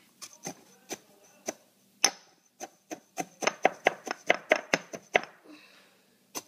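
Stone pestle pounding pretzels in a stone mortar, crushing them into small pieces. A string of sharp knocks, scattered at first, then a quick run of about five a second in the middle, and one last knock near the end.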